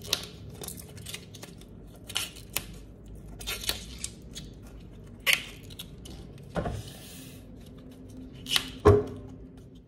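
Outer leaves being snapped off a raw artichoke by hand: a series of sharp snaps and crackles at uneven intervals, the loudest near the end.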